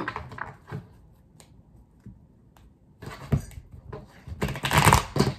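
Tarot cards being handled on a table: a single knock about three seconds in, then a brief rustling burst near the end, like cards being shuffled.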